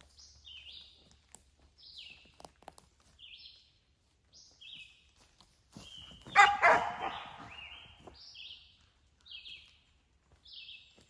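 A dog barking once, loud and harsh, about six seconds in. Throughout, a bird calls with short falling high notes about once a second.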